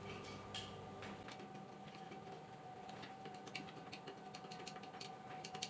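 Hand screwdriver tightening small screws on the metal parts of a mini woodturning lathe kit: faint, irregular little clicks and ticks of the tool and screws on metal, more frequent in the second half.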